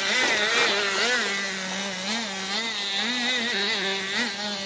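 Nitro RC monster truck's O.S. single-cylinder two-stroke glow engine running under way, its pitch rising and falling in quick swells as the throttle is worked.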